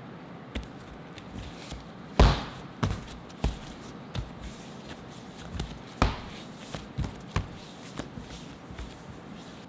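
Whole wheat bread dough being kneaded and rounded by hand on a stainless steel counter, making an irregular series of about ten soft thumps and slaps. The loudest comes about two seconds in.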